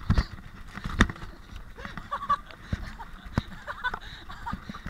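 Downhill mountain bike rattling and clattering over a rough forest trail, with tyre and wind rumble and several sharp knocks as it hits roots and bumps. A few brief high squeals come through about halfway in.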